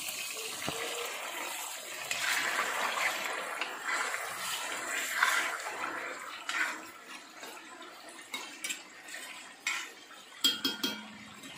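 Chicken pieces frying in hot oil in a wok: a steady sizzle, with a metal spoon stirring and scraping against the pan. A few sharp clinks of the spoon on the pan come near the end.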